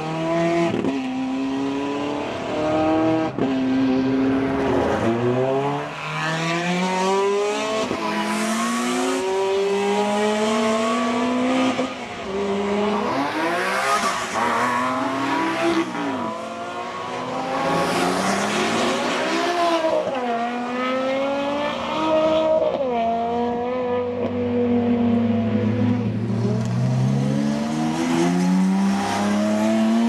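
Supercar engines, a Ferrari and Porsche 911s among them, accelerating hard one after another. The pitch climbs through each gear and drops back sharply at every upshift.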